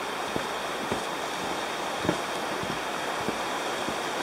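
Steady rush of the Azusa River flowing below, with footsteps knocking on the wooden deck of a suspension bridge, roughly two steps a second.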